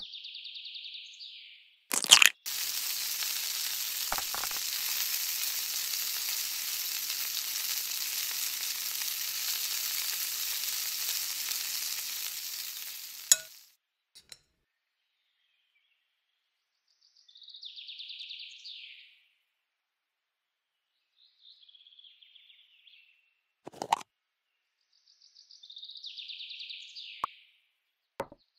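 A tiny egg frying in oil in a miniature pan: a steady sizzle that starts just after a sharp click and runs about eleven seconds before stopping. Later come a few light clicks of small pieces being set down, and some short high chirps.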